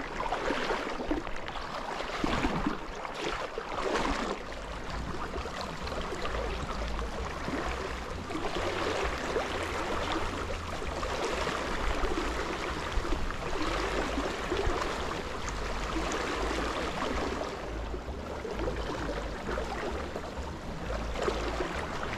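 River current rippling and gurgling, a steady rush of flowing water with a low rumble underneath.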